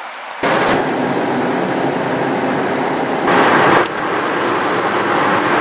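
Steady road and wind noise inside a car driving at highway speed, starting abruptly about half a second in, with a brief louder swell about three seconds in.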